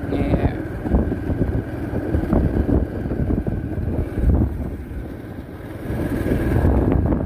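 Wind buffeting the microphone while riding on a moving motorcycle, with the bike running underneath; the rumble eases briefly about five seconds in.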